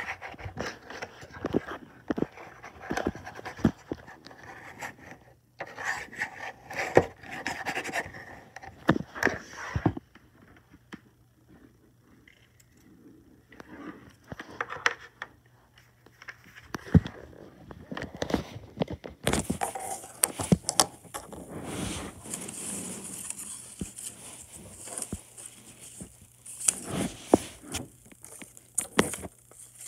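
Scraping, rubbing and clicking of things being handled close to the microphone, with a quieter stretch about a third of the way in and a steady hiss joining the handling noise about two-thirds of the way through.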